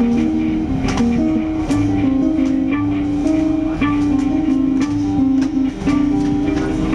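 A guitar playing an improvised melody of quickly repeated notes that step up and down in pitch.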